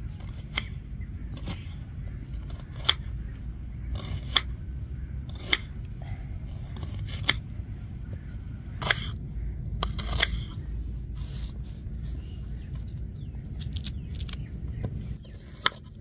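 Kitchen knife slicing through red onions, the blade tapping the wooden cutting board with each cut, in sharp, irregular clicks about once a second.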